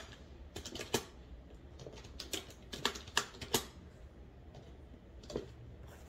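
Typing on a computer keyboard: a quick, irregular patter of key clicks, with a few louder keystrokes standing out among them.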